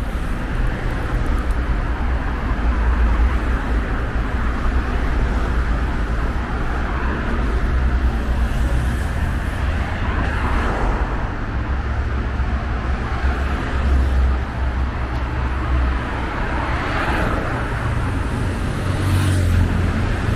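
Road traffic noise: a steady rumble of vehicles, with a few passing swells that rise and fade.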